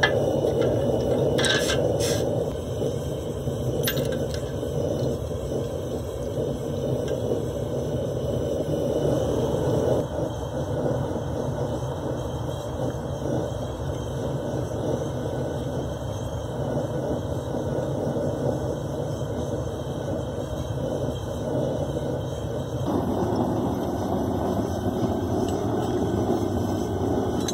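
Propane forge burner running with a steady, loud, low rushing noise. A few short clicks and knocks come in the first few seconds.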